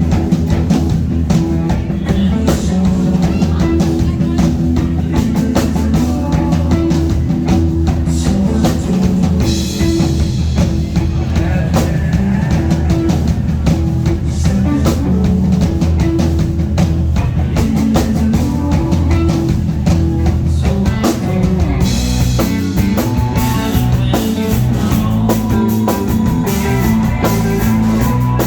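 Live rock band playing: drum kit and electric guitar over bass, loud and continuous, without singing.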